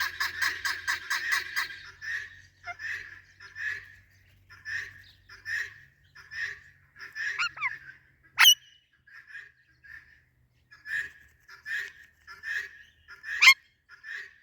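Parrot squawking: a fast run of repeated squawks for about two seconds, then single squawks roughly one a second, with two sharp, loud shrieks, one just past halfway and one near the end.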